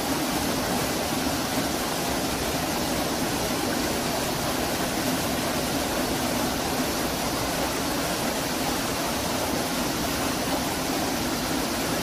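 A rocky mountain stream rushing steadily over and between boulders.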